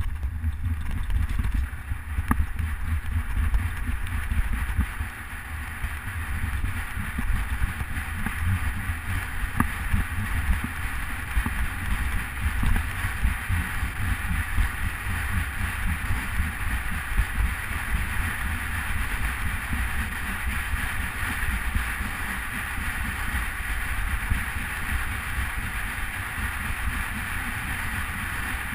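Wind buffeting a GoPro's microphone on a fast-moving recumbent bicycle, a heavy low rumble over the steady hiss of tyres rolling on asphalt, with a few light clicks.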